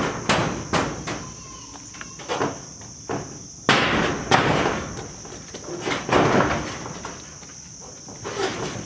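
Knocks and short rattling bursts from a steel siding panel being handled against a wooden shed frame, with the loudest bursts about four and six seconds in. Insects buzz steadily behind it.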